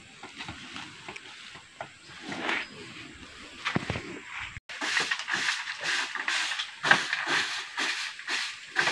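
Faint scattered knocks and rustling, then, after an abrupt break, a run of repeated scraping strokes, about two or three a second.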